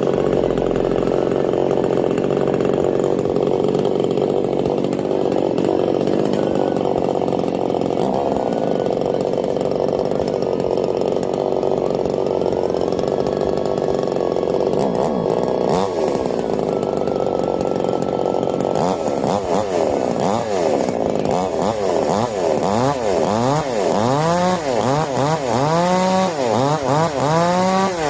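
Petrol chainsaw engine running at high speed. About two-thirds of the way through, the throttle is blipped repeatedly and the engine revs up and falls back over and over, roughly once a second.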